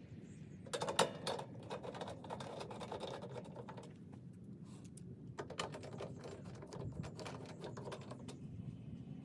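Hand tool working at the bottom of an electrical panel: two spells of rapid clicking and rattling, the first about a second in and the second around five and a half seconds in.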